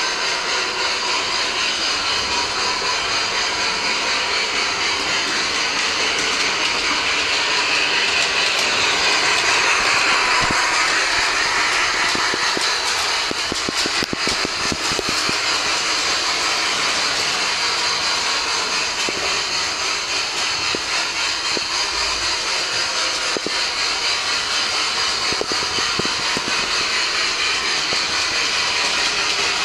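Bachmann model steam train running on its track: a steady whirring hiss of the motor and wheels, with runs of quick clicks partway through as the wheels cross rail joints.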